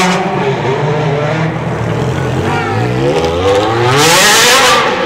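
Ferrari 360's V8 engine revving in a tunnel: its note rises from about halfway, then a loud full-throttle burst about four seconds in that cuts off sharply near the end.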